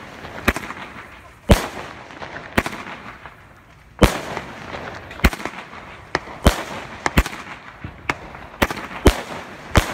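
A consumer multi-shot aerial firework (a cake) firing shot after shot, with about eleven sharp bangs roughly a second apart as each shell bursts overhead.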